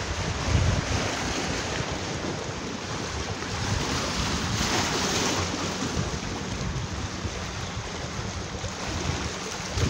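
Sea waves washing on the shore, one swelling louder about five seconds in, with wind buffeting the microphone.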